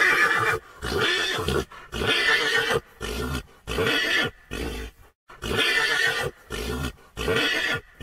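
Horse neighing in a quick series of short whinnies, about nine calls with brief gaps between them.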